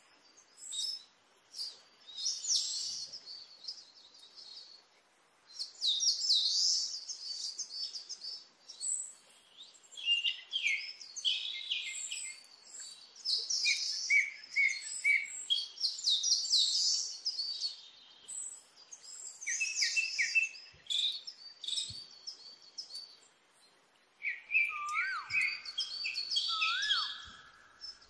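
Several birds chirping and singing in quick, overlapping high sweeping notes with short pauses between phrases, and a lower whistled note twice near the end.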